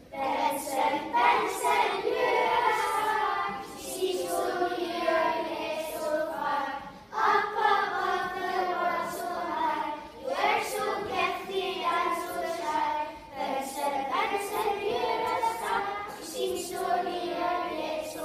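A group of children singing together, in phrases about three seconds long with short breaks between them.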